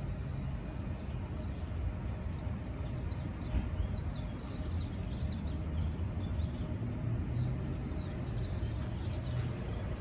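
Steady low rumble of street traffic, with small birds chirping faintly and briefly throughout.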